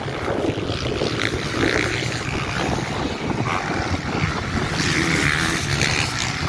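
Motocross bikes racing on the track: a steady blend of engine noise with no single machine standing out.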